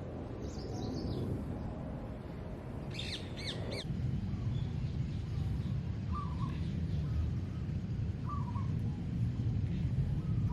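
Birds calling: a short high call, then a quick run of about five harsh notes, then a few shorter, lower calls, over a steady low background rumble.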